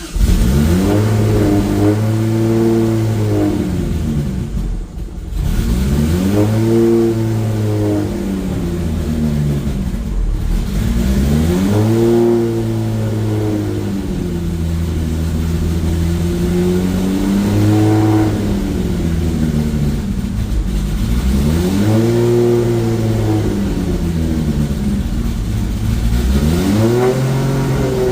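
Freshly rebuilt Toyota 2JZ turbocharged inline-six running on its first start-up, revved up and let fall back about six times, a few seconds apart, dropping back toward idle in between.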